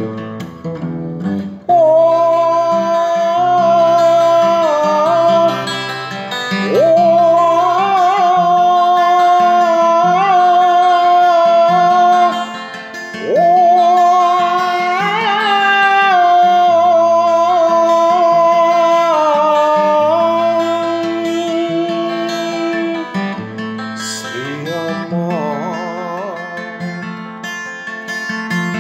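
Music: a voice holding long, wavering, wordless notes that slide up into new notes, over plucked acoustic guitar with a stepping bass line.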